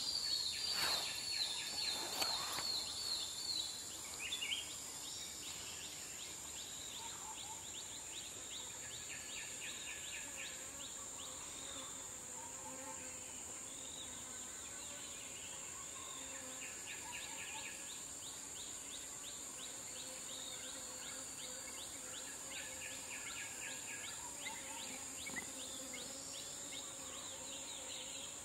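Evening forest ambience: a steady high insect drone with assorted birds calling. A rapid series of high bird notes in the first few seconds is the loudest part; after that come scattered chirps and trills.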